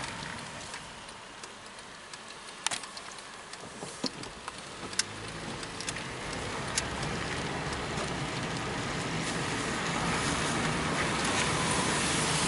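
Car on the move, its engine and road noise growing louder from about halfway through as it picks up speed, with a few sharp clicks in the first half.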